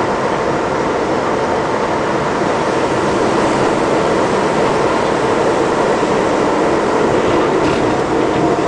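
New York City Subway #7 train running on elevated track, heard from inside the car as a steady, loud rumble and rattle of wheels on rails with a faint steady whine. Another train passes close by on the next track.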